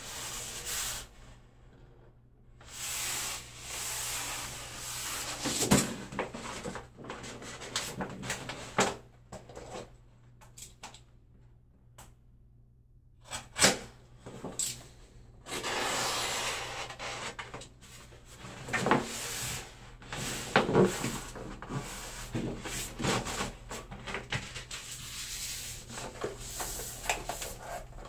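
Wallpaper being unrolled and smoothed by hand onto a pasted wall: swishing rubbing strokes of paper under the palm lasting a second or two, with a few sharp knocks and taps in between.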